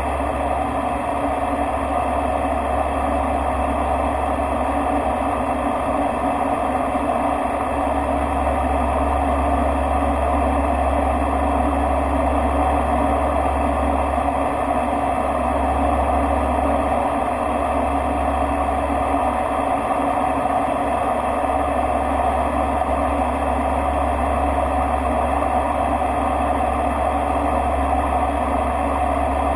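Bombardier Dash 8-Q200's twin Pratt & Whitney PW123 turboprop engines and propellers droning steadily inside the cockpit, with a low propeller hum under the engine and airflow noise.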